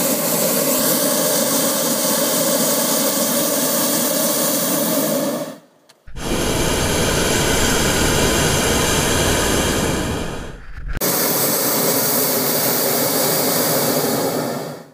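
Hot-air balloon's twin propane burners firing: a loud, steady roar. It breaks off briefly twice, about five and a half and eleven seconds in, and is deeper and rougher in the middle stretch. It stops abruptly near the end.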